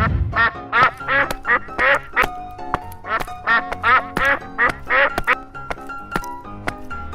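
Cartoon duck quacking: two runs of short, quick quacks, about two or three a second, with a brief pause between them, over background music.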